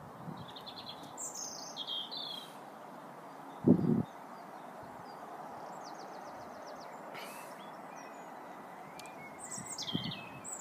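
Birds chirping and calling over a steady faint background hiss, with a trill about five seconds in. A short low thump about four seconds in is the loudest sound.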